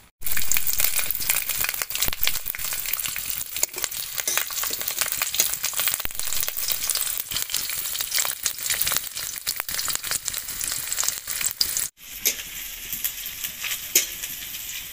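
Whole garlic cloves sizzling and crackling in hot mustard oil in a kadai. Near the end it is a little quieter, with a metal spatula stirring and clicking against the pan.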